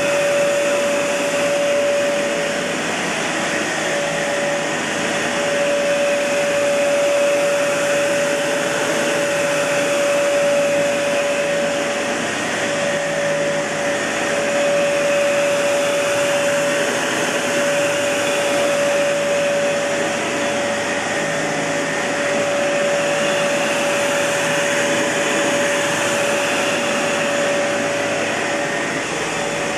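Kenmore Elite Cleva upright vacuum cleaner running steadily, its Panasonic Inducer motor giving a constant mid-pitched whine over the rush of air.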